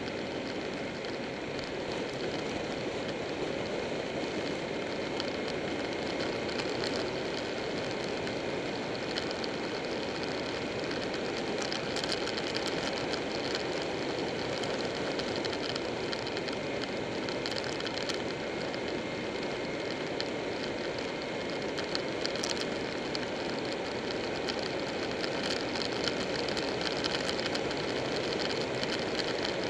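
Buell 1125R motorcycle riding at a steady speed: its 1125 cc V-twin engine runs evenly under a constant rush of wind and road noise.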